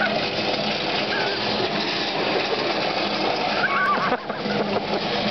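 Pallet stacker and hand pallet jack rolling fast over wet asphalt: a steady hum from the stacker's drive over a constant rushing noise of wheels on pavement, with a few short high squeals.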